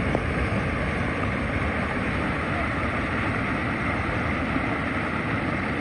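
Floodwater rushing steadily down a canyon wash, carrying logs and debris: an even, continuous rushing noise.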